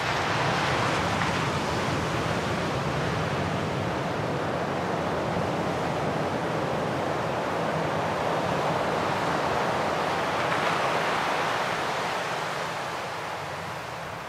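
Sea surf washing over a shore, a steady rush that swells and eases, with no music or voice.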